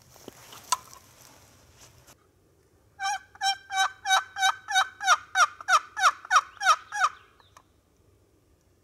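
Turkey yelping: a loud run of about thirteen evenly spaced yelps, about three a second, each breaking downward in pitch, growing louder over the first few. Before it there is faint rustling with a single click.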